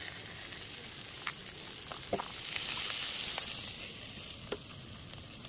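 Pork belly (samgyeopsal) sizzling as it cooks over a fire. The sizzle swells louder a little past the middle and then settles, with a few light clicks along the way.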